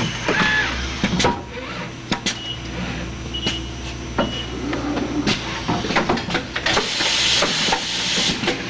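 Automated door-handle assembly machine cycling: pneumatic tooling clicking and knocking with bursts of air hiss over a steady machine hum, and three short high beeps in the middle.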